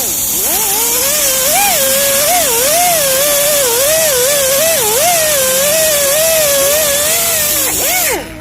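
Background music: a single lead voice or synth line that slides and wavers continuously, over a loud hiss, cutting off suddenly near the end.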